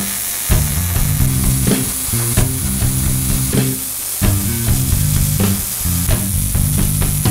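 MIG welding arc crackling and sizzling steadily as steel is welded, over background music with a repeating bass line.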